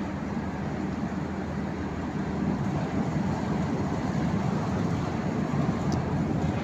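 Container ship's machinery running with a steady low rumble and hum while the ship berths alongside the quay.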